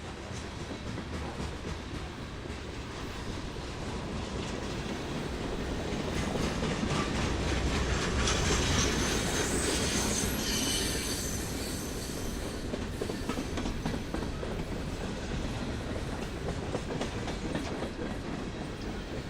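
Train rolling past, its wheels clacking over rail joints. The sound builds to its loudest about halfway through, with a high wheel squeal at the peak, then eases off.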